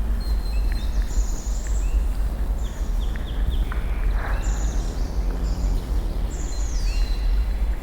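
Birds chirping and whistling, with several quick falling whistles and short repeated chirps, over a steady low rumble.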